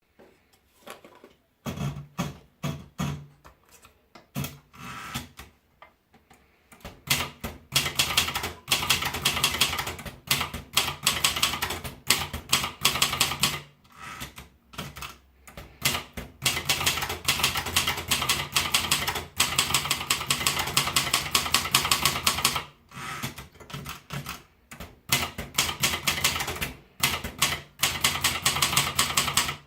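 Royal Litton typewriter being typed on: rapid runs of sharp key strikes, broken by a few short pauses.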